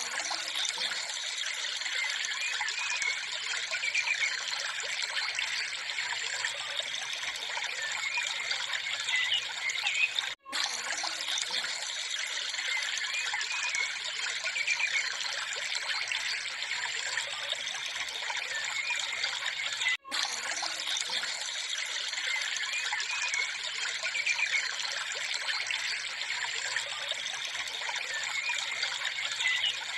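Steady trickling, running-water sound, a looped background track that cuts out briefly about every ten seconds where the loop restarts.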